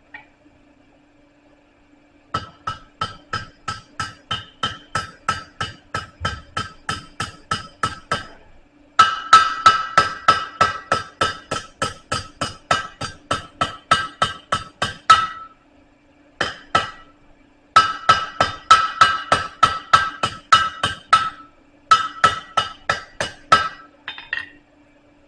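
Blacksmith's hammer striking a hot steel bar on an anvil to bend it: runs of quick, evenly spaced blows, about three a second, each with a metallic ring, in several bursts broken by short pauses. A faint steady hum sits underneath.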